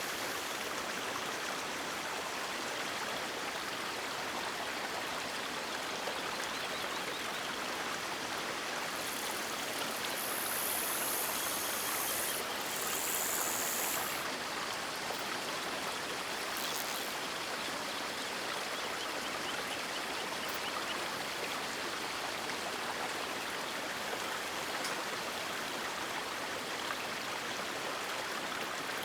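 Steady rush of flowing river water, with a brighter hiss swelling for a few seconds about ten seconds in.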